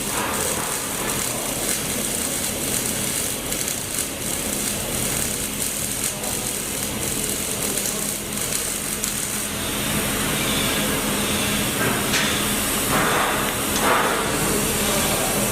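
Welding arc crackling steadily on a pipe joint, over a constant low hum.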